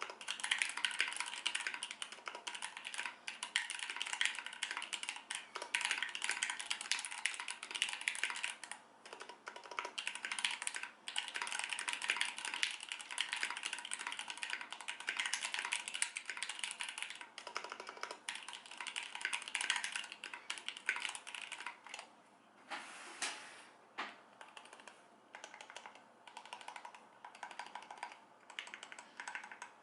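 Typing on a foam-dampened mechanical keyboard with lubed Gateron Ink switches: a fast, dense run of key clacks that thins into sparser keystrokes with short pauses in the last third, with a single heavier stroke partway through that part.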